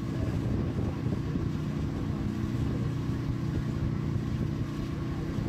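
Motorboat engine running steadily, a low even drone.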